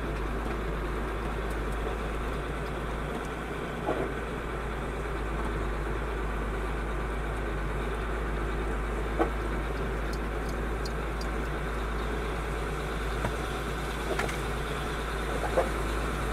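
Loaded truck's diesel engine running steadily at low speed, heard from inside the cab, with a few short knocks along the way.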